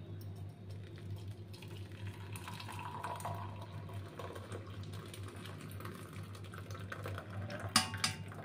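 Hot milky tea poured from a steel pan through a plastic tea strainer into a cup: a faint, steady trickle of liquid, with a low hum under it and a couple of light knocks near the end.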